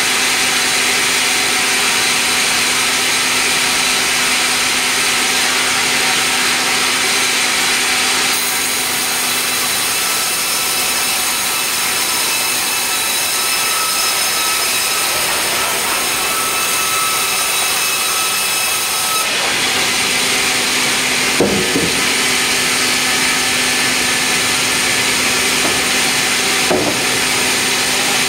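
Sawmill band saw running and cutting through a meranti log: a steady machine whine with a high hiss, its tone shifting about eight seconds in and again around nineteen seconds. Two short wooden knocks come in the second half.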